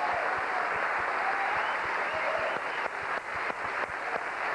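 Studio audience applauding, thinning out to scattered separate claps about three seconds in.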